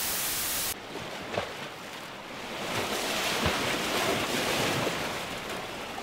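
A burst of TV-static white noise that cuts off sharply under a second in, then sea waves washing on a rocky shore, swelling in the middle and easing toward the end.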